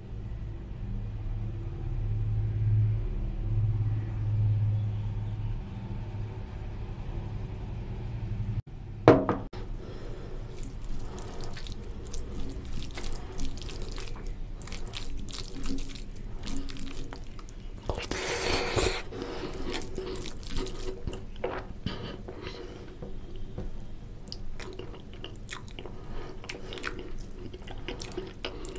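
Extra curry gravy poured onto a plate of rice, then a hand mixing basmati rice with oily mutton fat curry on a steel plate: wet squishing and squelching with many small clicks.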